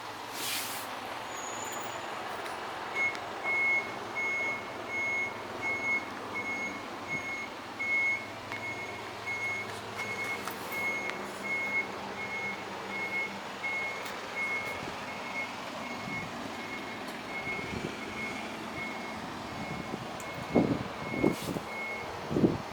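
Electronic warning beeper on an Isuzu Elf truck sounding a steady, evenly spaced single-pitch beep, about one and a half beeps a second, over the running truck. A sharp noise comes at the very start and a few knocks come near the end.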